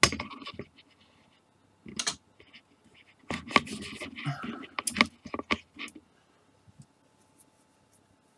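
Plastic model-kit sprues being handled: a string of clicks, knocks and short scrapes of plastic frames in the first six seconds, loudest right at the start and about five seconds in, then only a few faint ticks.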